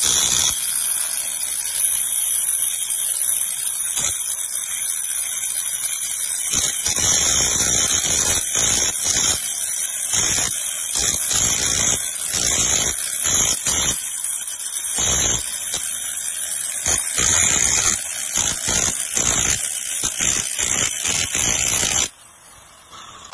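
A small high-speed power tool running steadily with a loud, high-pitched hiss and whine, surging irregularly lower down; it cuts off sharply about a second before the end.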